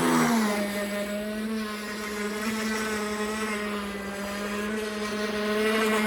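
Pro Boat Recoil 2 RC boat's brushless electric motor running with a steady, even-pitched whine. It is fitted with a 34 mm prop, which the owner takes for the reason it isn't reaching full speed.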